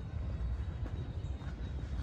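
Steady low outdoor rumble of city ambience, with a few faint hoof clops from a horse walking on pavement.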